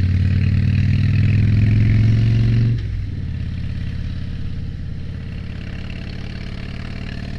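2007 Harley-Davidson Dyna Street Bob's Twin Cam 96 V-twin engine pulling under throttle with its pitch slowly rising. About three seconds in, the throttle closes and the engine drops to a quieter, lower run as the bike backs off for a sharp corner.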